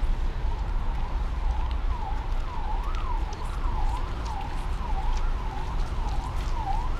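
An emergency vehicle's siren rising and falling about twice a second, coming in about two seconds in, over a steady low rumble.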